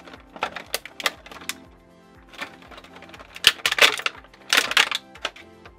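Clear plastic packaging (a bag and a thin plastic tray) crinkling and crackling in several short spells as a toy figure is handled and pulled out, over background music.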